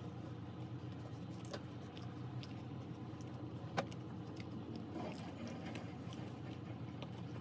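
Quiet chewing of a chocolate-dipped marshmallow, with small mouth clicks and one sharper click about four seconds in, over a steady low hum.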